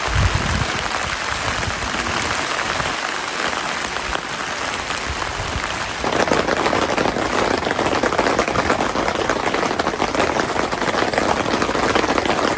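Rain falling steadily as an even hiss, which becomes louder and fuller about six seconds in.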